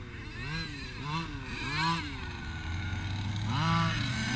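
Gas-powered large-scale RC buggy's two-stroke engine revving up and down in quick throttle blips, then holding a steadier pitch before rising again near the end.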